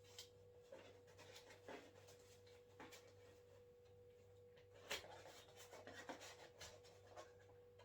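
Near silence: a few faint taps and rustles of paper food cartons being handled, over a steady faint hum.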